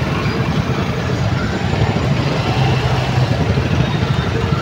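Motorcycle and scooter engines running in slow, crowded traffic, idling close around with a steady low hum.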